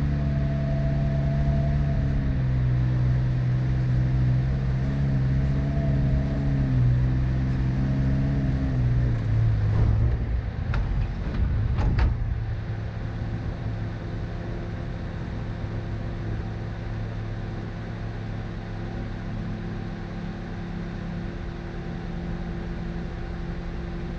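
Car engine running with the revs rising and falling, a few sharp knocks about ten to twelve seconds in, then a steadier, quieter engine hum.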